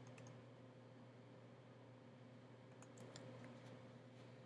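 Near silence: room tone with a low steady hum and a few faint computer keyboard clicks about three seconds in.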